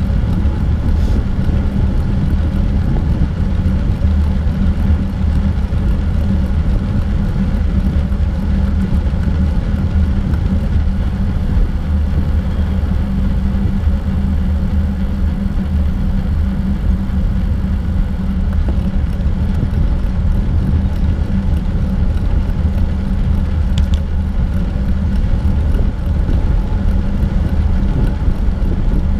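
Steady wind noise on the microphone of a bicycle-mounted GoPro moving along a paved trail, a constant deep rush mixed with tyres rolling on asphalt.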